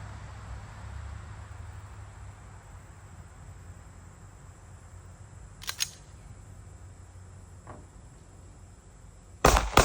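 Steady low background noise, a sharp metallic click about six seconds in, then near the end a Glock 17 pistol opens fire: loud sharp shots in quick succession, about three a second.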